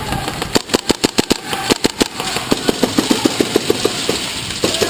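Airsoft electric guns firing in bursts: a rapid run of sharp shots, ragged at first, then a steady full-auto stream of about eight shots a second that stops shortly before the end.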